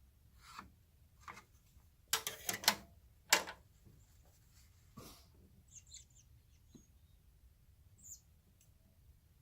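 Scattered clicks and knocks of a ruler and workpiece being handled at a saw, loudest in a quick cluster about two seconds in and a single sharp knock just after, with a few faint high squeaks later.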